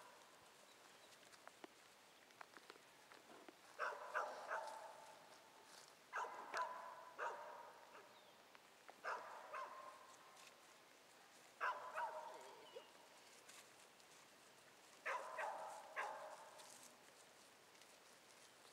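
A dog barking in five short bouts of two or three barks each, a few seconds apart.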